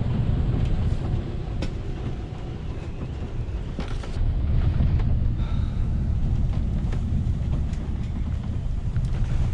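Low, steady rumble of a heeled sailboat driving under sail through rough sea, heard from inside its cabin, with wind noise on the microphone. A few knocks sound through it, the clearest near the start and about four seconds in.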